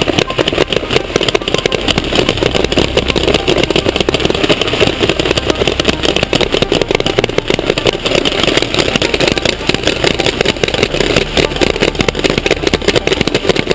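Rapid, continuous popping of many paintball markers firing at once, a dense, rattling volley that keeps up at a steady level throughout.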